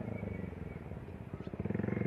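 Low throbbing of an engine running, fading a little about a second in and growing louder again near the end.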